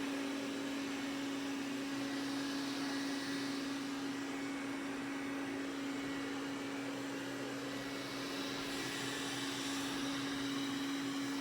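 Roborock S6 Pure robot vacuum running steadily: an even hum with one constant tone over a fan hiss.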